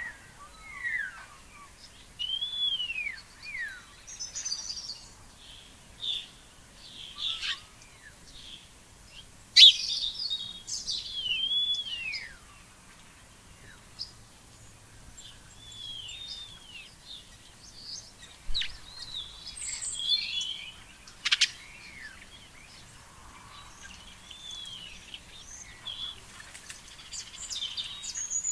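Songbirds calling: a string of short whistled notes that arch up and down in pitch, with some sharp high chips mixed in, coming every second or two.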